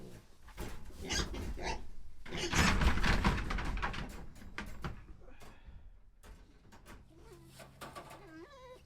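Piglets squealing in a series of loud bursts, loudest about three seconds in, mixed with knocks and rattles.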